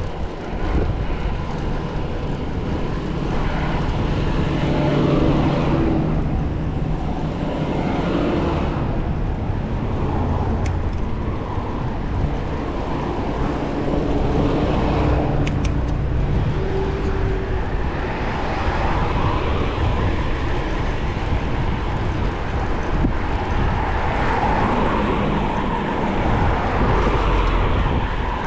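Motor traffic, among it a school bus, passing along a street, heard from a moving bicycle over a steady rumble of road and wind noise. The vehicle sound swells and fades several times.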